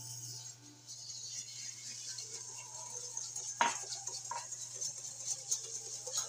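Wire whisk beating a creamy mixture in a glass bowl: a fast, continuous scraping and ticking of the wires against the glass. About three and a half seconds in there is a single louder clink.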